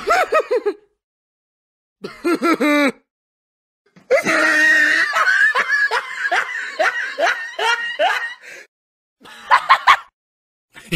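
Laughing sound-effect clips played one after another and separated by dead silence. There are short bursts of a person laughing in quick pulses, a longer stretch of laughter of about four and a half seconds in the middle, and another brief laugh near the end.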